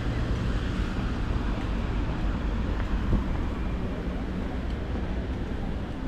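Steady low engine rumble with a constant hum under a wash of background noise.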